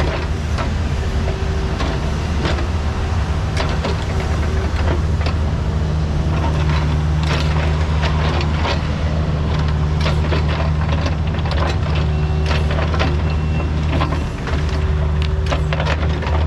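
Kubota U55 mini excavator's diesel engine running steadily under work, with frequent short knocks and scrapes through it from the machine digging and moving dirt.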